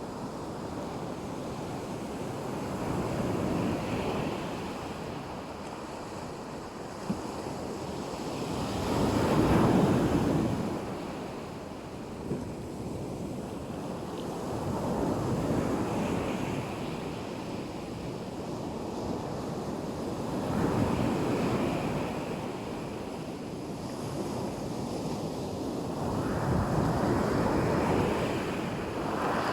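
Black Sea waves breaking and washing on the shore, the surf swelling and falling back about every six seconds, the biggest wave about ten seconds in.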